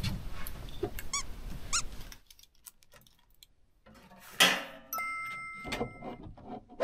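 Edited-in video sound effects: three short squeaks in the first two seconds, then after a brief hush a sudden thump, followed by a bright ringing chime of several steady tones lasting about a second.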